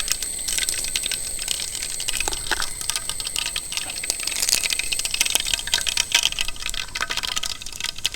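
Mustard seeds popping in hot coconut oil: many quick, irregular crackles over a sizzling hiss.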